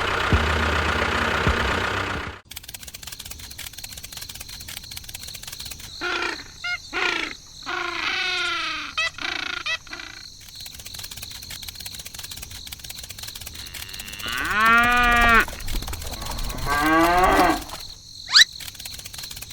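A small engine runs briefly and cuts off suddenly. Then cattle moo several times, in groups of drawn-out calls that rise and fall in pitch.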